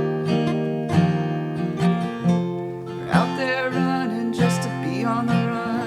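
Acoustic guitar strumming and picking in the closing bars of a folk song.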